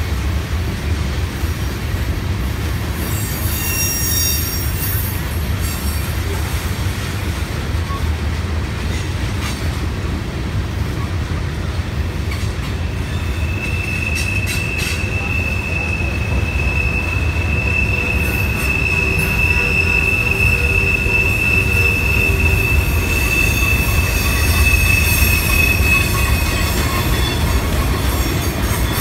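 Train rolling past with a steady low rumble, its wheels squealing: brief high squeals a few seconds in, then one long, steady high-pitched squeal from about halfway through that lasts some thirteen seconds.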